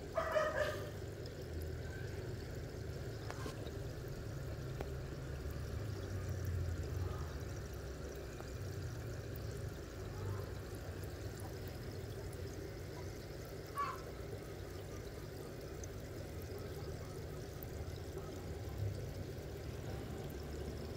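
Steady trickle of running water with a low hum beneath it. Two brief high chirps come through, one just after the start and one about two-thirds of the way through.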